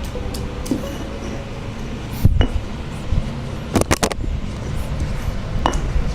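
Garlic being pounded and ground with a pestle in a cobek (Indonesian mortar): irregular knocks and scraping. There is a quick run of about four knocks about two-thirds of the way through.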